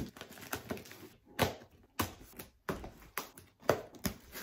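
Cardboard parcel box being opened by hand: a string of short, sharp rips, scrapes and taps of tape and flaps, about half a second apart with brief quiet gaps between.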